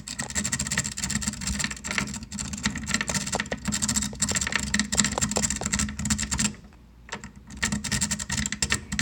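Lock-pick rake being scrubbed rapidly in and out of a Medeco wall-safe lock, a fast run of metallic scratching and clicking against the pins. It stops for about a second roughly two-thirds of the way through, then starts again.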